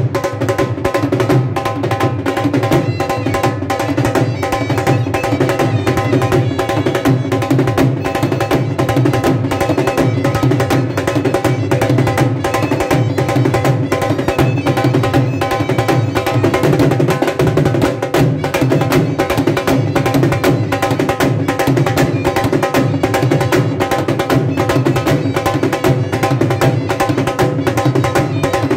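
Dhol drums played close by in a fast, steady rhythm: sharp clicks of the thin stick on the treble head over the deep strokes of the bass head, without a break.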